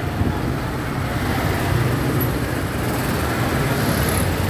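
Motorcycle engine running at low speed in slow, dense city traffic, with a steady low hum and an even wash of road and traffic noise.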